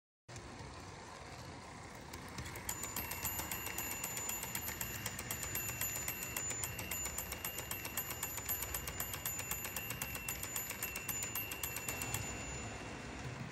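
Model railroad crossing signal's electronic bell ringing in rapid, even strikes, starting a few seconds in and stopping shortly before the end. A low running noise from the toy train on the track goes on underneath.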